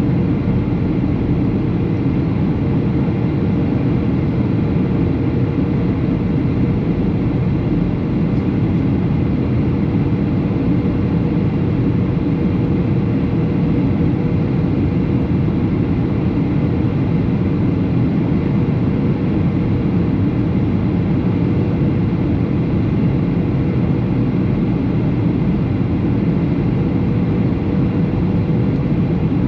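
Boeing 737 cabin noise in flight: the steady drone of the engines and rushing airflow, with a faint steady hum tone running through it.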